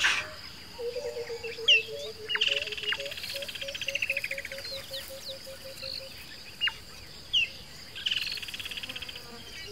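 Savanna bush ambience: birds calling, one with a low note repeated evenly several times a second for about five seconds, plus scattered short chirps and two brief buzzy trills, over a steady high insect whine.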